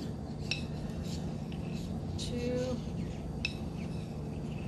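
A metal measuring spoon clinking against a glass jar as baking powder is scooped and levelled, several light separate clinks over a steady low room hum.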